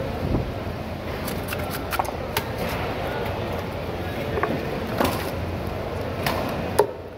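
Knife clicking and knocking against a cutting board while a whole ruby fish is slit open and gutted, with a sharp knock near the end. Underneath is a steady background din.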